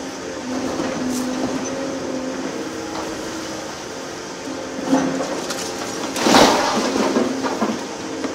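Volvo EC750E HR high-reach demolition excavator running with a steady drone from its engine and hydraulics while it pulls down brickwork. Knocks about five seconds in, then a loud crash of falling bricks and rubble about a second later, with smaller knocks after it.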